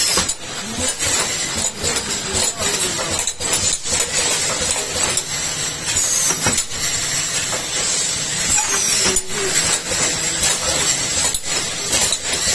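Six-head inline PET jar foil sealing machine running: a steady high hiss over a low hum, with irregular clacks and knocks from the sealing heads and the jars on the conveyor.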